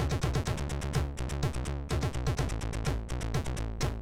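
Commodore 64 SID chip (MOS 6581) chiptune music: a steady beat of noise-channel drum hits over a low bass line, with short drum sounds that drop quickly in pitch.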